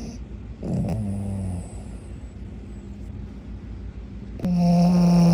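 Small flat-faced dog snoring: a shorter snore about a second in, then a louder, longer snore with a steady pitch near the end.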